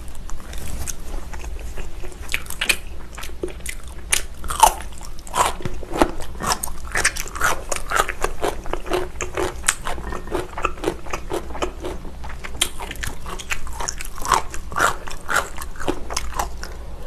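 A person chewing food close to the microphone: many quick, irregular mouth clicks and crunches.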